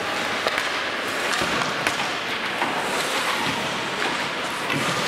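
Ice hockey play on an indoor rink: a steady hiss of skates on the ice, broken by several sharp clacks of sticks and puck and thuds against the boards.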